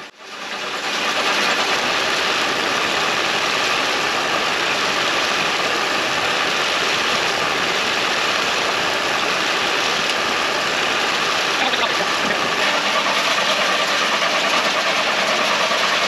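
Hay elevator running steadily, its chain conveyor carrying small square hay bales.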